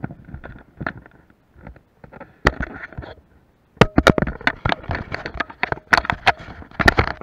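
Handling noise on a small action camera: rustling fabric and irregular knocks and taps against the microphone as it is moved about against a jacket and harness, sparse at first and much busier from about four seconds in.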